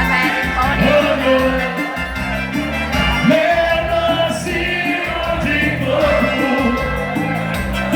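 Vanera (vaneira) dance music playing, with a stepping bass line under the melody and no sung words.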